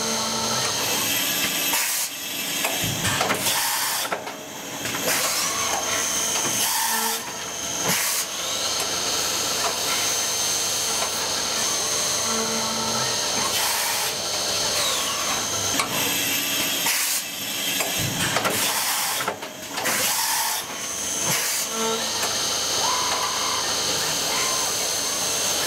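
Porta Solutions PORTACENTER three-spindle CNC machining centre cutting brass valve bodies: a steady high spindle whine over a hiss of coolant spray. The whine rises and falls in pitch now and then, and the run is broken a few times by short dips and knocks.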